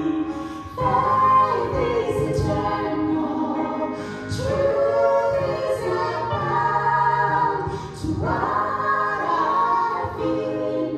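Several voices singing a worship song together, in phrases that start again about every four seconds over steady low held notes.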